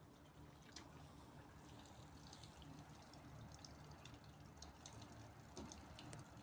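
Faint sea water lapping and splashing at the shore, in many small irregular splashes over a low steady hum.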